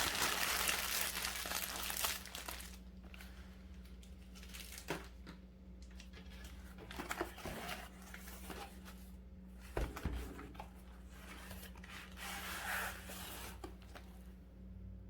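Packaging being torn open and crumpled by hand: a loud spell of tearing and crinkling in the first two seconds, then quieter rustling and handling with a few small taps.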